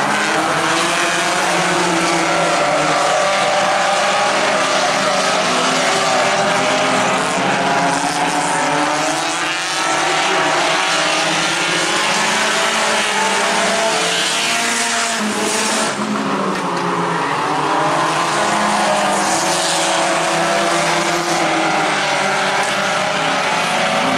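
A pack of compact-class race cars running together, several engines revving up and down in overlapping pitches as they go through the turns and down the straights.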